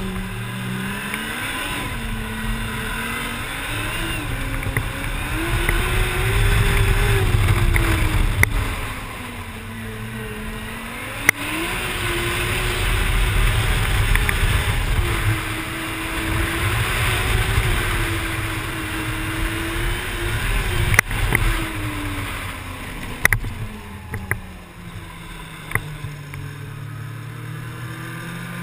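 Arctic Cat snowmobile engine running under way, its pitch rising and falling as the throttle is opened and eased, and dropping lower near the end as it slows. A few sharp clicks cut through.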